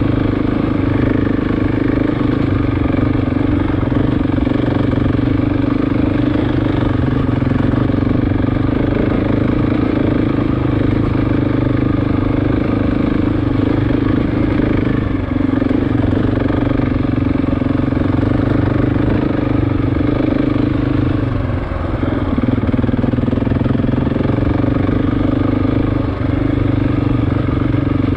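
KTM motorcycle engine running steadily under way, its pitch dipping briefly a few times as the revs drop.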